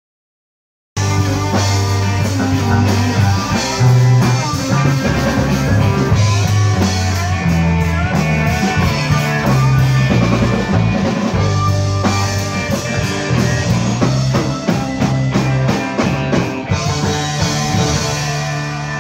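Rock music with electric guitar, bass and drum kit, starting abruptly about a second in after silence.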